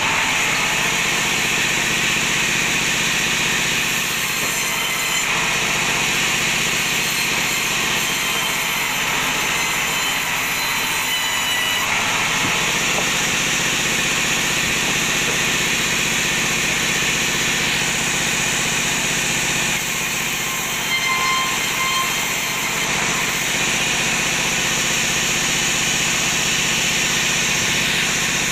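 Sawmill band saw running steadily with a continuous mechanical drone and hiss.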